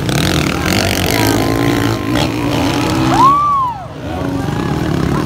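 Motocross dirt bike engines revving and running on the track, pitch wavering as riders work the throttle. About three seconds in, a brief high tone rises and falls over it.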